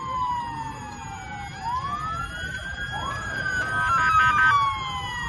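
Several emergency sirens wailing at once, their pitches sweeping up and down and overlapping, with a stepped siren tone loudest about four seconds in, over a low steady rumble.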